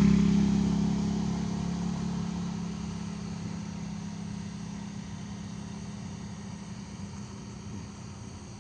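A motor engine humming at a steady pitch and fading away over several seconds, as if moving off into the distance.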